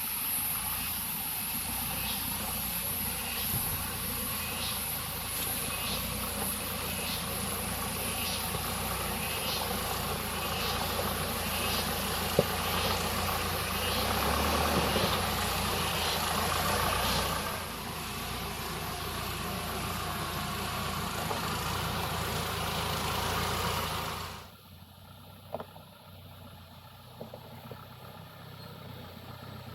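Mahindra Thar's engine running steadily, with a high-pitched buzz over it for the first two-thirds; the sound drops off sharply near the end.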